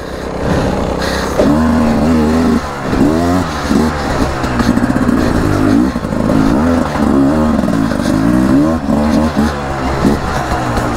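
2023 Beta RR300 two-stroke enduro dirt bike engine revving up and down over and over, the throttle opened and shut in short bursts about once a second.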